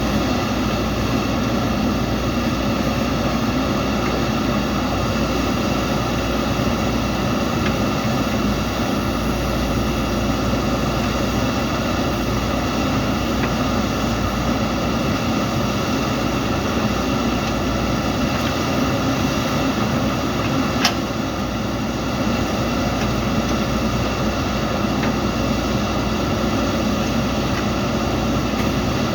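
Diesel engine of a JCB 3DX backhoe loader running steadily under work, with one sharp clank about three quarters of the way through.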